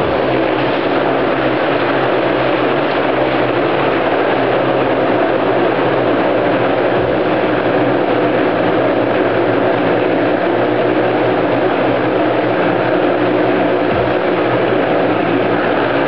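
Several motorcycles running hard without letup as they circle inside a steel mesh globe of death, their engines blending into one steady, loud drone.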